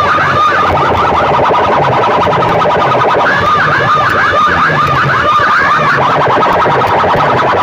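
Very loud DJ sound-system playback of a repeating, warbling, siren-like electronic tone over a repeating low bass pattern.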